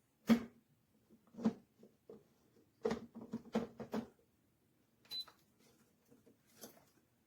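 Irregular sharp clicks and knocks of hard objects being handled, several in quick succession near the middle, over a faint steady low hum.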